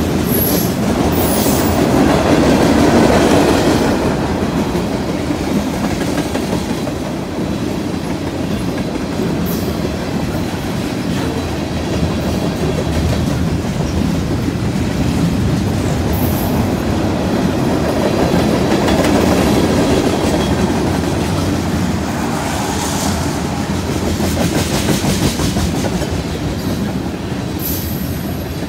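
Freight train's tank cars and covered coil steel cars rolling past close by: a steady rumble of steel wheels on rail with a clickety-clack over the rail joints. Brief high-pitched wheel squeals cut in a few times.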